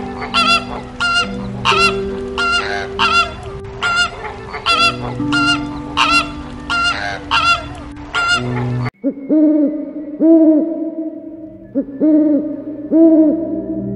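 Flamingos honking: goose-like calls about two a second over a steady low drone. About nine seconds in, this cuts abruptly to an owl's short, repeated arched calls.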